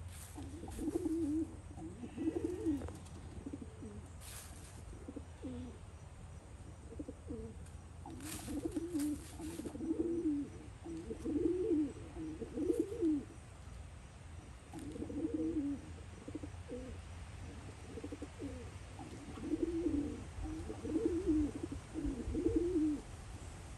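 Silkie chicken giving soft, low, warbling clucks in repeated runs of about a second each. A few faint crackles of dry leaves come from its foraging.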